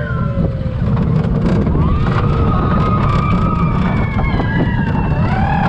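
Gerstlauer junior roller coaster train running along its steel track: a steady low rumble with wind buffeting the microphone, and several high-pitched tones over it that rise, hold and fall.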